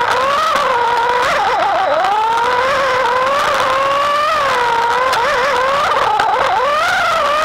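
Slot car's small electric motor and gears whining, heard from on board the car. The pitch rises and falls as the car speeds along the straights and slows for the bends, and it wavers and dips twice, about a second and a half in and again near the end.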